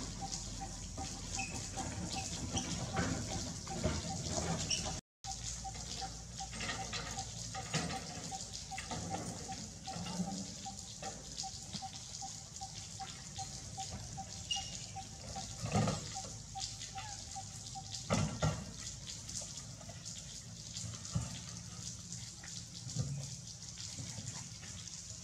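Steady patter of rain with dripping water, joined by a faint pulsing tone through most of the stretch and a few soft knocks; the sound cuts out for a moment about five seconds in.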